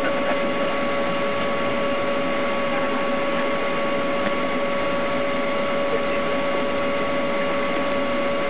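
Steady noise inside a slowly moving patrol car, with a constant thin whine held at one pitch throughout.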